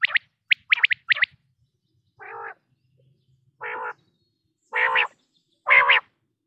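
Male common quail calling: a quick run of sharp, high 'pwit' notes, then four nasal, croaking 'wau' notes about a second apart, each louder than the last.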